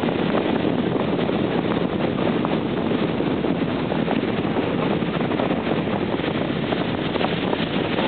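Steady noise of a tow boat running at speed, its engine and water rush mixed with wind buffeting the microphone.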